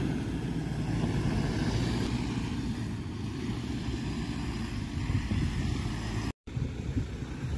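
Toyota Fortuner SUV engine running as it slides around on loose dirt, with a low wind rumble on the microphone; the sound cuts out briefly near the end.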